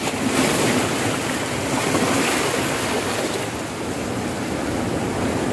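Steady rushing of sea waves and wind, setting in abruptly and holding at an even level.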